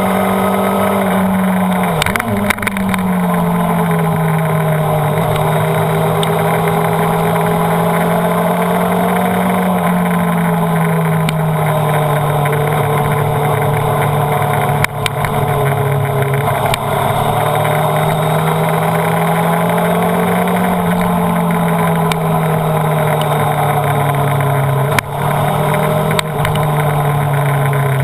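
Honda CBR929RR's inline-four engine running hard at track speed, over a steady rush of wind. The engine note slowly rises and falls, with sudden drops in pitch about two seconds in, around ten seconds in, and a few seconds before the end.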